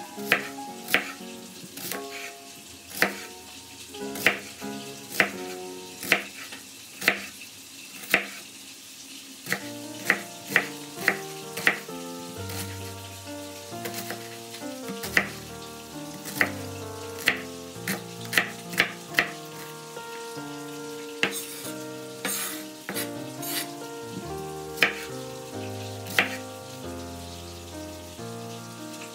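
Chef's knife cutting an onion on a bamboo cutting board: sharp knife strikes on the wood, about one a second at first and coming faster in runs from about ten seconds in. Soft background music runs underneath.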